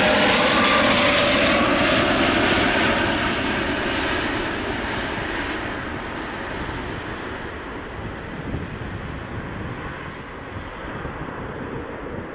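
Boeing 787 Dreamliner's twin jet engines at takeoff thrust as the airliner climbs away. A whine drops in pitch in the first seconds, then the engine noise fades steadily as the aircraft recedes.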